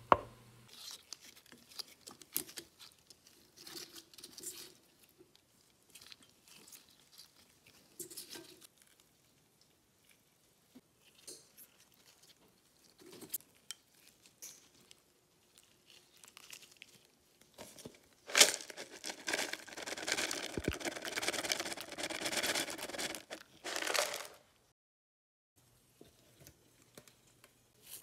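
Kitchen food-prep handling sounds: scattered light clicks and scrapes of utensils against a bowl while a mixture is stirred, then a louder, dense stretch of scraping and crackling noise for about six seconds, which cuts off suddenly.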